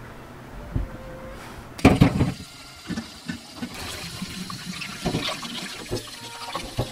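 Tap water running over a peeled potato as it is rubbed clean by hand above a stainless steel sink, starting about two seconds in with a few knocks along the way.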